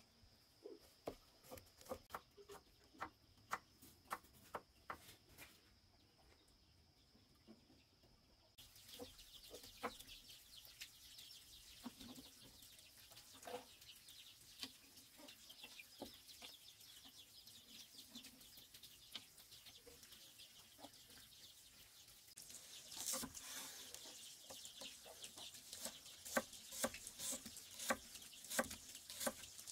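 Cleaver chopping on a thick wooden chopping board: a run of sharp knocks about two a second, then a pause. From about a third of the way in, a steady high outdoor hiss is heard. Near the end, quick chopping starts again as shallots are sliced.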